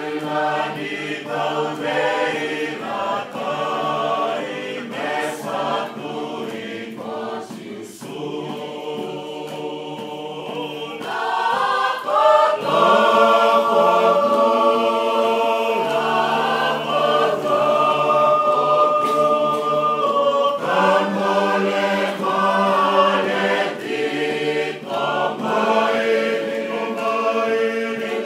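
A group of people singing together unaccompanied, in harmony. It grows louder about twelve seconds in, where the voices hold long sustained chords.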